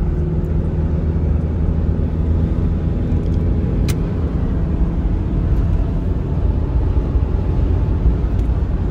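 Diesel Mitsubishi Pajero cruising at highway speed, heard from inside the cabin: a steady low drone of engine and tyre-on-road noise, with a single short click about four seconds in.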